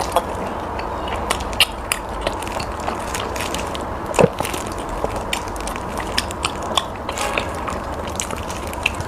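Close-miked eating: biting and chewing with frequent small wet clicks and smacks, one louder smack about four seconds in.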